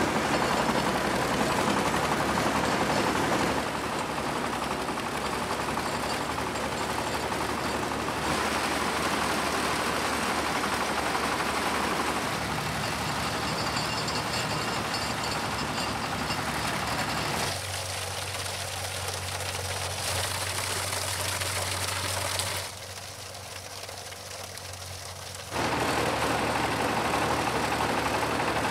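Motor-driven hay chopper running steadily as armfuls of hay are pushed into its hopper: a continuous machine noise with a low hum, dropping quieter for a few seconds near the end.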